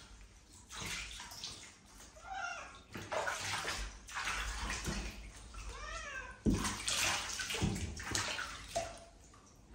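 Water splashing and sloshing in a shallow bathtub as a domestic cat is washed by hand, with the cat meowing a couple of times, each call rising and falling in pitch. A sharper splash comes just after the second meow.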